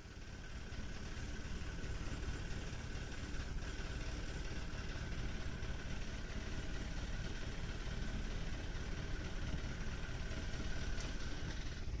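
Boat engine idling as a steady low rumble, with a thin steady whine over it from the electric deep-drop reel as its spool turns.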